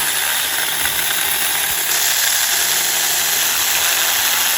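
Saker mini cordless chainsaw running steadily at full speed, its battery-powered electric motor and chain cutting through a small tree limb.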